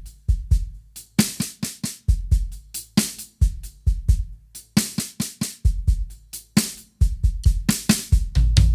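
Drum kit groove of bass drum and a 14x5 snare, with a shaker of wooden nuts resting on the snare head and rattling along with the snare strokes. Near the end a last hit rings on.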